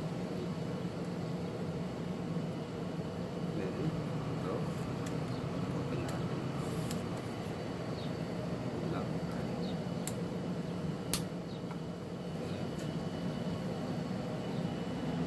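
A few sharp clicks and taps as the legs of an aluminium mini tripod are extended and its plastic leg clips handled, the loudest click about eleven seconds in. A steady low hum runs underneath.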